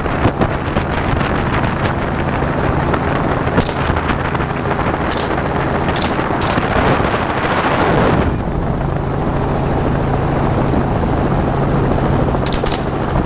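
Helicopter's engine and rotor running steadily in low flight, heard from inside the doorless cabin with wind rushing in, with a few faint clicks.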